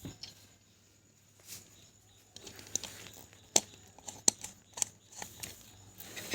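Small clicks and rustling as the black neutral wire is handled and pushed into the plug board's terminal, after a quiet start of about two seconds, with a few sharper clicks in the second half.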